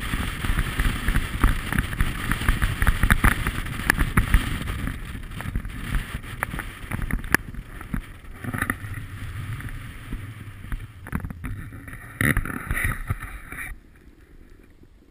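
A snowboard sliding and carving down packed snow: a rough scraping hiss with wind buffeting the microphone, easing off gradually and stopping suddenly near the end as the rider comes to a halt.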